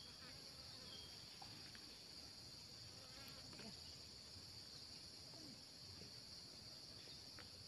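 Near silence with a faint, steady high-pitched insect drone, unbroken throughout.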